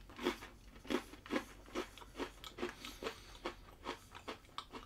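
A person chewing a crunchy sweet ration biscuit spread with strawberry jam, close to the microphone: steady crunches about two and a half times a second.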